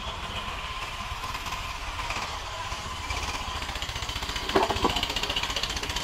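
Sawmill machinery running: an engine going steadily with a fast rattle, and a couple of louder knocks about four and a half seconds in.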